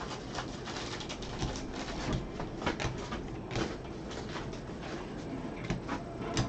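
Football trading cards being handled and shuffled through: scattered light clicks and rustles of card stock sliding and tapping, with a soft knock just before the end.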